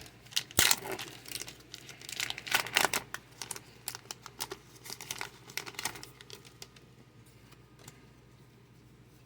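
A Pokémon booster pack's foil wrapper being torn open and crinkled by hand: a dense run of sharp crackles and rustles that dies away after about six seconds.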